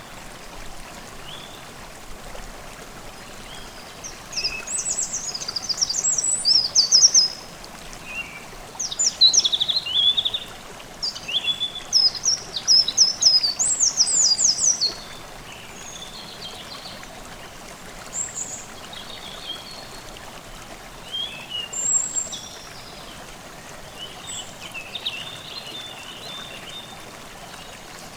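A forest stream babbling steadily while songbirds sing: several loud, high, rapid song phrases in the first half, then fainter scattered calls.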